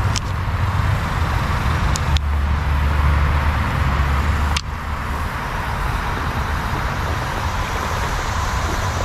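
Steady low rumble with several sharp clicks from a plastic water bottle being handled. The rumble grows heavier about two seconds in and drops off suddenly with a click a couple of seconds later.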